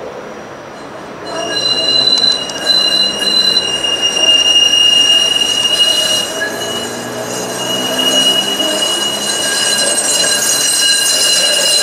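Flexity Outlook streetcar's steel wheels squealing as it takes the tight curve of a turning loop: a loud, steady high squeal that starts about a second in, with a second, higher tone coming and going over it.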